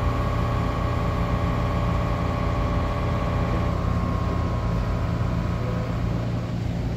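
Fast wire EDM's axis drives whining steadily over a low machine hum as the head moves back. Part of the whine drops out about halfway through, and the rest fades near the end.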